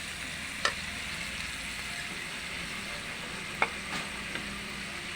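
Mixed vegetables (carrots, cabbage, broccoli, red chili) sizzling steadily as they stir-fry in a pan, with a cooking utensil knocking sharply against the pan twice.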